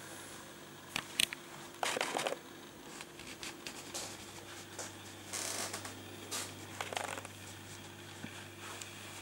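Handling noise from a handheld camera: a few short clicks and brief rustles, the loudest about two seconds in, over a steady low hum.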